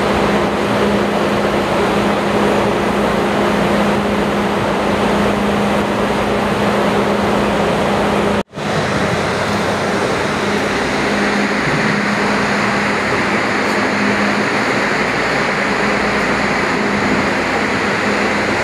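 Steady, loud machinery drone with a constant low hum, the continuous noise of port cargo-handling machinery heard from inside a container ship's hold. It cuts out for an instant about eight and a half seconds in.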